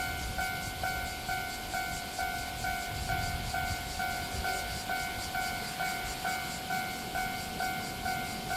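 Japanese level-crossing warning bell ringing in a steady two-tone beat, about two strikes a second, over the low rumble of a train.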